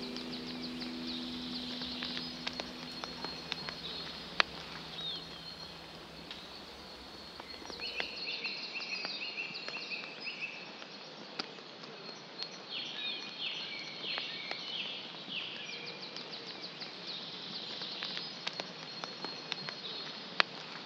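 Field recording of birds chirping and insects trilling in short repeated bursts over a faint hiss, with a few soft clicks. The last sustained guitar notes fade out in the first few seconds.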